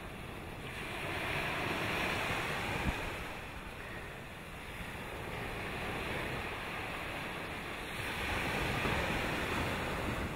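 Sea water washing and slapping against a small boat's hull in surges every few seconds, with wind on the microphone.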